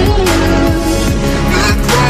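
Background music: a song in an instrumental stretch between its sung lines, with long held notes.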